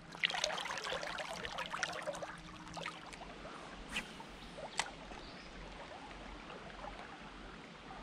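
Creek water splashing and trickling as a small sunfish is let back into the water by hand, busiest for the first few seconds, then a steady, quieter flow of the creek. Two sharp clicks come about four and five seconds in.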